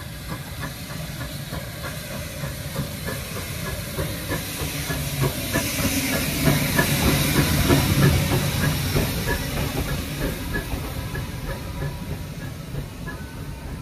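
Small steam tank locomotive running slowly past along a platform hauling coaches, hissing steam from its cylinders. The hiss swells to its loudest as the engine passes, about halfway through, then fades, over a steady clicking of wheels on rail joints, about two a second.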